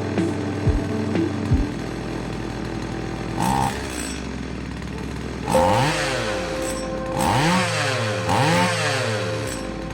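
STIHL 021 two-stroke chainsaw running at a steady low speed, then revved up and let back down three times in quick succession in the second half. It is being test-run after its oil seals were replaced to cure an engine speed that would not hold steady.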